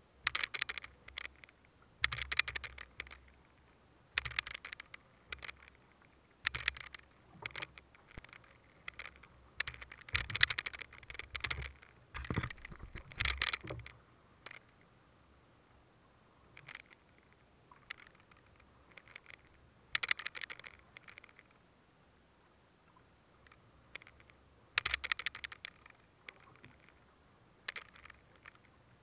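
Irregular bursts of scraping and knocking on a small open boat, some with a dull thump, between quieter stretches.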